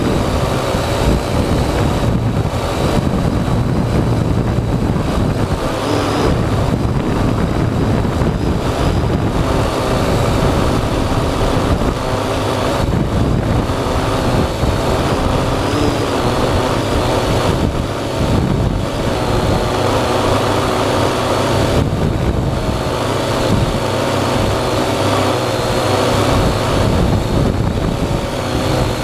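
Parrot AR.Drone 2.0 quadcopter's electric motors and propellers whirring steadily, with a thin high whine that wavers slightly in pitch.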